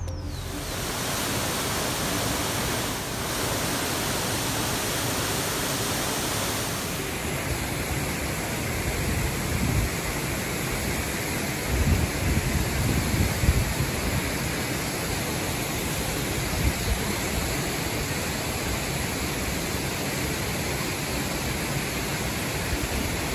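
Waterfall: a steady, dense rush of falling water, with a few louder low surges about halfway through.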